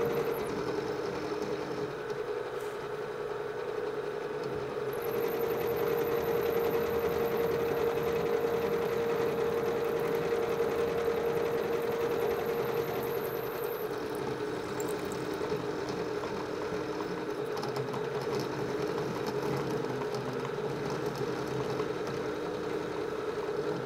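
PM-727 vertical milling machine running with a roughing end mill cutting into the workpiece: a steady motor hum over the noise of the cut, with a faint high whine that comes in about five seconds in and fades out after about fourteen seconds.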